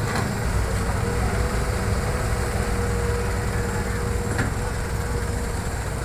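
Hitachi hydraulic excavator's diesel engine running steadily under load as the machine swings and lifts a bucket of soil, with a steady whine over the low rumble.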